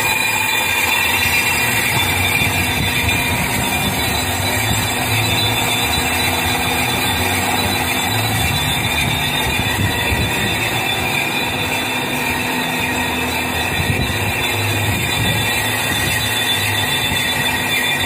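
Metal lathe running steadily, its chuck spinning a tiger bronze bushing during rough machining: a continuous mechanical hum with a steady high whine.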